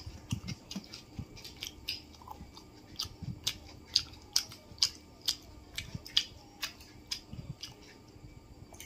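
A man chewing masala dosa with his mouth open: a string of short, sharp wet smacks and clicks, irregular, about two or three a second.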